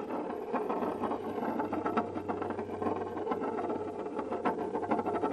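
Metal coins clinking and rattling against each other in a dense stream of small clicks, with louder, more separate clinks near the end.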